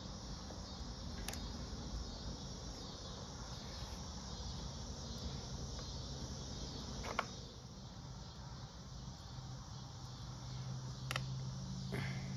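A few small, sharp clicks of metal parts being handled: an ATV throttle cable, carburetor slide cap and return spring worked by hand. Under them runs a steady background of insect chirring and a low hum.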